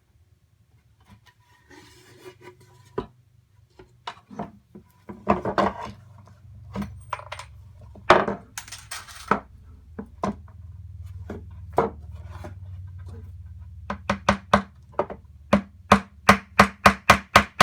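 Hammer driving a nail into the wooden corner joint of a Langstroth hive body: scattered knocks and wood handling at first, then a quick run of even hammer blows, about three a second, near the end.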